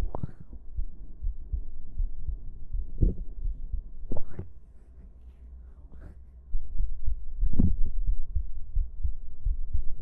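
A heartbeat picked up through a stethoscope: a quick, steady run of low thuds, with a few louder scrapes and bumps from the chest piece being moved, and a quieter stretch in the middle.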